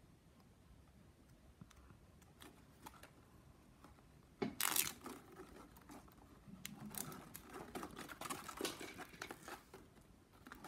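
Plastic packing strap crinkling and rustling as it is handled and split in two. Only a few faint clicks at first, then a sudden louder rustle about four and a half seconds in, with irregular crinkling after it.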